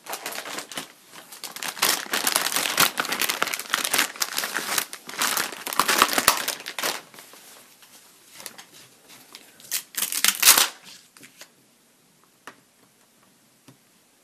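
Close crinkling and rustling as craft supplies are handled, in dense irregular bursts that stop about eleven seconds in, followed by a couple of faint ticks.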